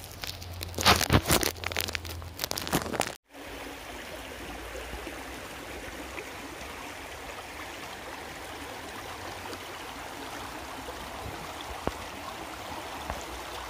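A shallow, muddy stream running fast over stones: a steady rush of water. It is preceded for about three seconds by loud knocks and rustling, which cut off abruptly.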